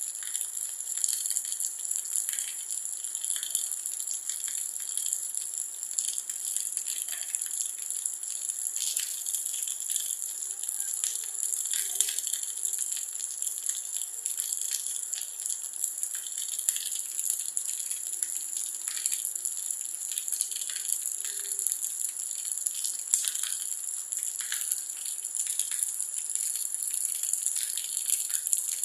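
Steady rain falling, a dense high hiss with many scattered drops pattering throughout.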